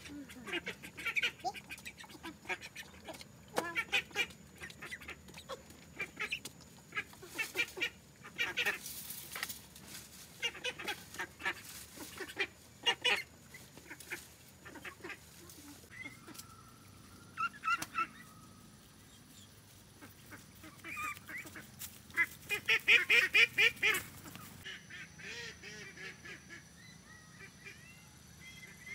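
A flock of white domestic ducks quacking over and over, with a loud fast run of quacks about two-thirds of the way through; near the end the calls give way to a quieter outdoor background.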